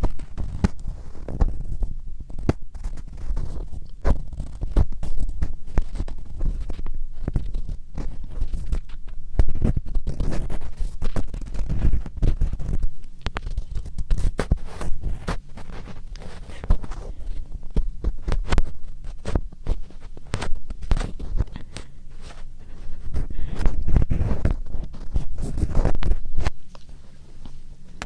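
ASMR scratching close to the microphone: a dense, unbroken run of rapid crackly scratches and scrapes over a low rumble.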